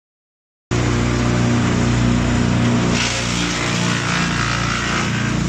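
D16 wood chipper running at full speed, its engine holding a steady note. From about halfway a harsher hiss joins in over the engine.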